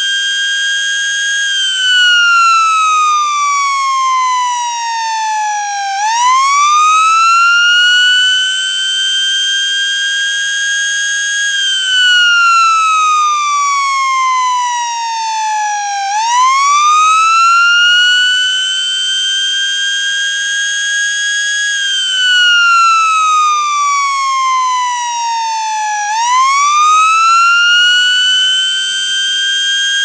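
Electromechanical tornado siren sounding a wail for its weekly test. The pitch climbs quickly, holds briefly at the top, then slides slowly down, with a new climb about every ten seconds.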